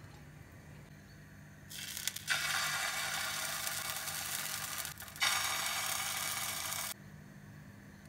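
Batter sizzling in a hot oiled frying pan, in two stretches of a few seconds each that start and stop abruptly.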